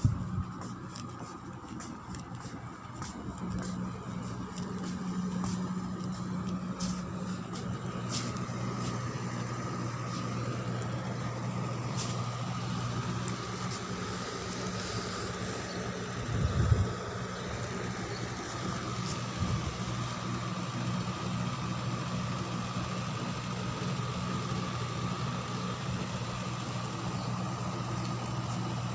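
Ship's machinery running with a steady low hum and a fainter steady high whine. There is a single louder low thump about sixteen seconds in.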